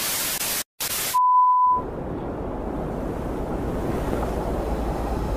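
TV static hiss that cuts out twice, then a short steady test-tone beep like the one played with colour bars, followed by a low rushing whoosh that slowly builds.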